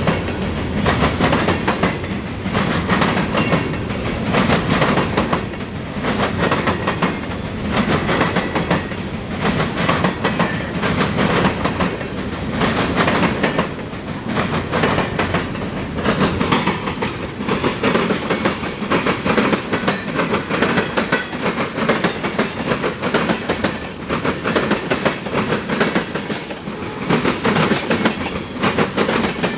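CSX Q311 freight train's cars rolling past at track side: a continuous steady rumble with the wheels clattering over rail joints at a regular beat, roughly once a second.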